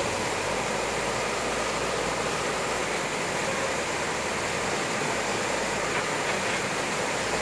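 Steady rush of muddy floodwater flowing through an overflowing channel, mixed with the steady diesel engine of a backhoe working at the water's edge.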